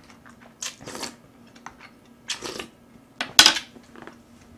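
Close-miked eating sounds: chewing with the mouth full and chopsticks on dishes, heard as a few short noisy bursts. The loudest comes about three and a half seconds in.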